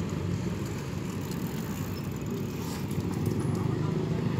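A motor vehicle engine running steadily: a low, even rumble.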